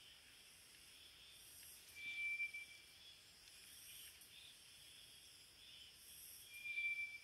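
White's thrush giving two long, thin whistles on one steady pitch, about four and a half seconds apart, over faint high insect trilling.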